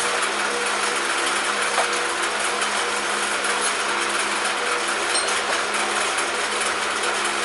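A steady motor hum over an even hiss, like a fan or other small running machine, with a faint click or two.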